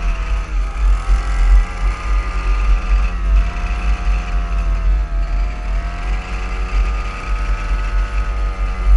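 Small petrol strimmer engine powering a go kart, running hard with its pitch dipping and climbing again several times as the throttle is eased and reopened, over a heavy low rumble of wind on the microphone.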